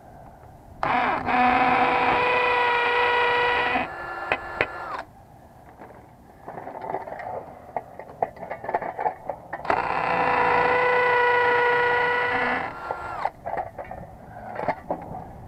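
Cordless drill running in two steady bursts of about three seconds each, spinning up and winding down, as screws go through the metal disconnect box into the brick wall. Clicks and knocks from handling the box come between the runs.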